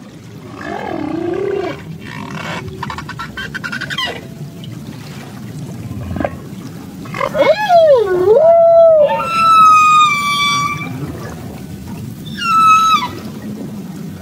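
Humpback whale song: a series of drawn-out pitched calls. The loudest, about halfway in, swoops down and back up, followed by a long, steady high call and a shorter one near the end that drops off.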